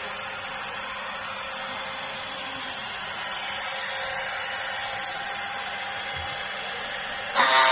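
Five-axis CNC router spindle running with a steady whirring hiss as the head swings into position over a vacuum-formed plastic part. Near the end the sound jumps to a much louder burst as the bit starts cutting the plastic.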